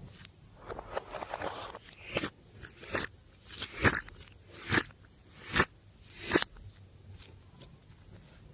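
Slime being worked by hand. There is a short run of crackling, then six sharp pops and clicks a little under a second apart as it is pressed and folded, and it quietens near the end.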